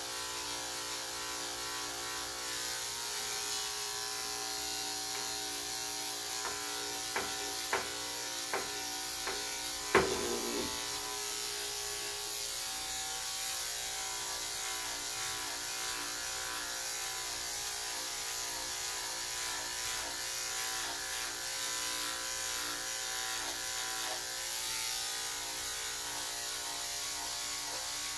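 Electric dog grooming clippers running steadily as they shave through matted fur. A few light clicks come around seven to eight seconds in, and a sharp knock about ten seconds in.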